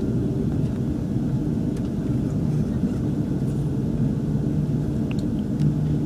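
Steady low rumble inside the passenger cabin of an Airbus A340-600 on the ground, its four Rolls-Royce Trent 500 engines running. A few faint clicks about five seconds in.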